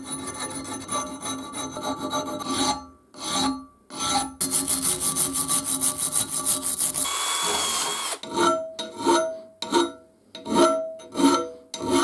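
Hand-deburring the steel parts of a Beverly Shear. First come quick short strokes of a small file, then a fast, even scrubbing of a wire brush. From about two-thirds of the way in come about six slow, separate strokes of a flat file along the edges.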